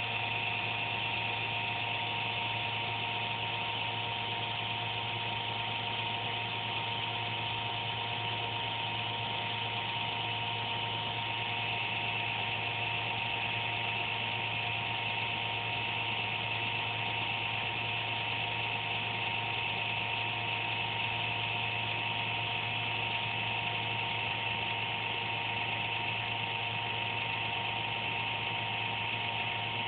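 Desktop computer giving off a buzz: steady whining tones over a low hum and a hiss. It is an intermittent noise the owner thinks comes from a fan but is not sure.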